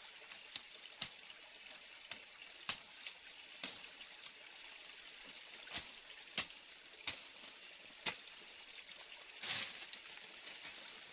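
Irregular sharp snaps and rustles of dry stems and leaf litter being handled, about a dozen at uneven intervals, with a longer rustle about nine and a half seconds in. A steady hiss of running water lies underneath.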